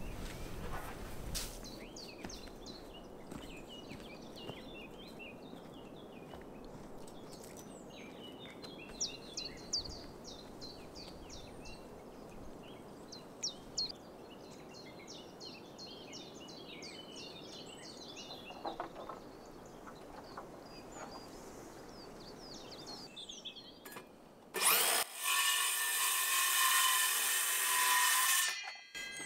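Birds chirping and singing over a faint outdoor background. Near the end a power tool starts with a sharp burst, runs loudly with a steady whine for about four seconds, then stops.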